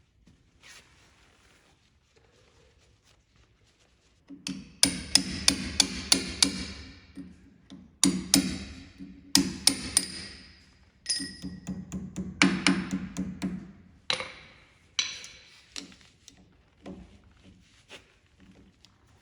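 Hammer blows on metal while taking apart a John Deere 4030 tractor wheel hub to repack its bearings. Sharp, ringing strikes begin about five seconds in with a quick run of about six, then come singly and in short clusters, and end as lighter taps.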